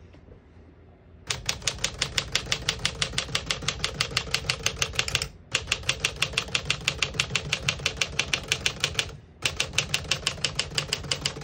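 Typing on a 1957 Smith-Corona Silent-Super portable typewriter: rapid, even key strikes, several a second, in three runs with two brief pauses between them.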